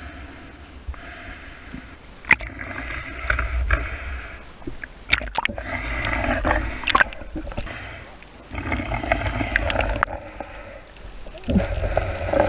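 Water gurgling and sloshing around a camera held underwater, coming in surges every few seconds, with a few sharp clicks and knocks.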